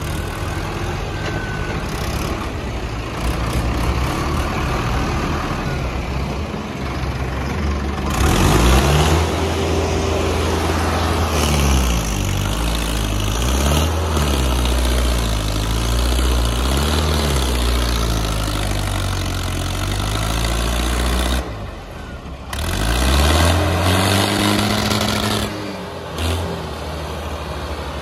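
Diesel tractor engines revving hard under load, their pitch surging up and down, as two tractors pull against each other in a tug-of-war. The engines drop back briefly about 21 seconds in, then rev up again.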